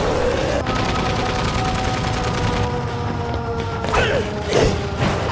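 Anime battle soundtrack: held music notes over a dense rattle of gunfire-like sound effects and rumble, with a couple of quick falling sweeps about four seconds in.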